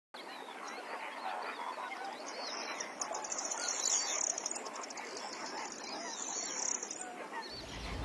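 A mixed chorus of many birds chirping and calling, with a high buzzy trill running through the middle.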